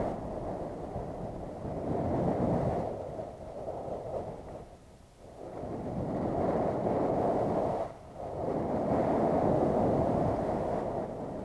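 Wind rushing over the microphone of a skier's camera while skiing downhill, swelling and fading, dropping away briefly about five seconds in and again near eight seconds.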